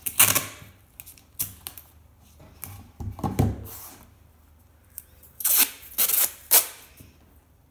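Masking tape being pulled off its roll in several short, noisy pulls, three of them close together near the end, and hands rubbing the tape flat onto a stretched canvas.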